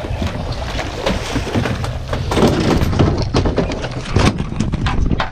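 A yellowfin tuna hauled over the gunwale of a fibreglass boat: a run of knocks and thumps against the hull and deck, thickest from about two seconds in, over a steady low rumble of wind and water.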